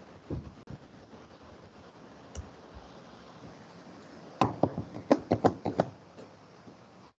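Laptop keyboard typing: a quick run of about ten keystrokes lasting a second and a half, after a couple of lone faint taps.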